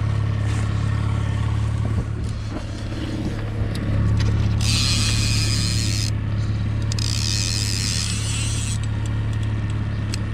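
Outboard motor running steadily at trolling speed, a low hum, while a high whirring from a line-counter trolling reel comes in three stretches of a second or two, starting about four and a half seconds in, as a hooked fish is reeled in.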